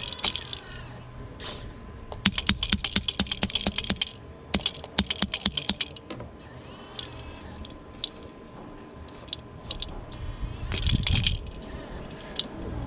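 Electric hammer attachment of a radio-controlled model excavator chattering in two bursts of rapid clicks, about eight a second, with short whines from the model's small motors in between.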